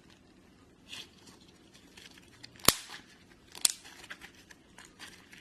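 Slime being squeezed and stretched by hand, with soft crackles and two sharp pops about a second apart near the middle, the first the loudest.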